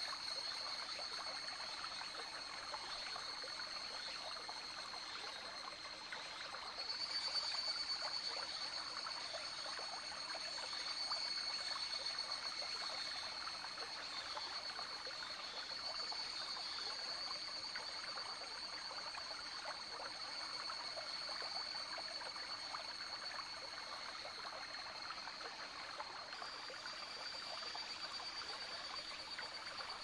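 Small rocky forest stream trickling and babbling, with a chorus of higurashi (evening cicadas) calling in a steady high-pitched tone above the water; the chorus swells about seven seconds in.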